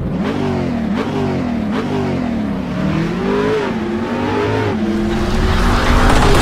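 Car engine revving up and down several times, then holding a steady pitch under a rising rushing noise near the end, like an intro sound effect.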